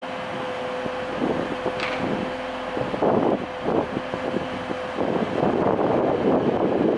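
Class 185 diesel multiple unit running at the platform, a steady engine hum, with gusts of wind buffeting the microphone that grow louder near the end.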